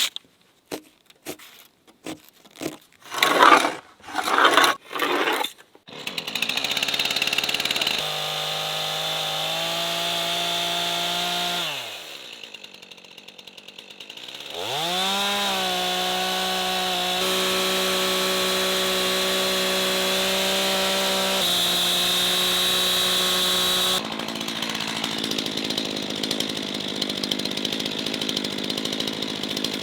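Gasoline chainsaw running hard while milling a log into boards on a chainsaw mill. About halfway it drops toward idle and revs back up, and its pitch changes abruptly at several points. The first few seconds hold irregular scuffs and knocks before the saw starts.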